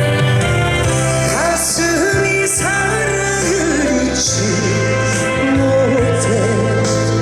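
A male trot singer singing live with vibrato over a full band backing track with a steady bass line.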